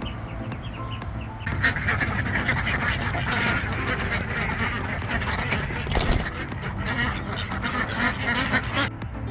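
A flock of ducks quacking together in a dense, continuous clamour that starts about a second and a half in and cuts off abruptly near the end.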